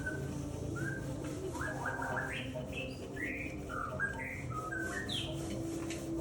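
A bird singing a run of short, clear whistled notes that slide up or down, over a steady low hum.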